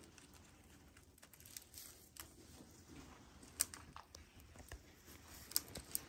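Faint scattered small clicks and crackles from a baby hedgehog being handled in cupped hands, with a couple of sharper ticks about three and a half seconds in and near the end.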